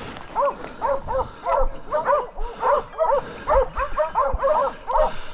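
Several Plott hounds baying together, quick overlapping bays several a second, each rising and falling in pitch, without a break: the sound of hunting dogs holding a wild boar at bay.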